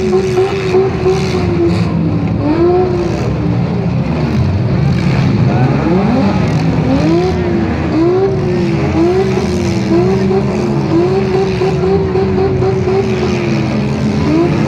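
Demolition derby cars' engines running together, one of them revving up and easing off again and again in a rapid series of rises and falls over a steady low rumble.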